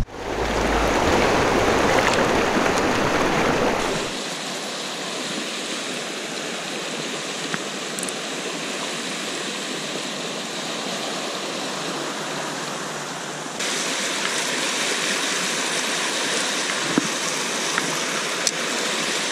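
Mountain trout creek running over rocks: a steady wash of moving water. It changes abruptly about four seconds in, losing its low rumble, and shifts again about two-thirds of the way through.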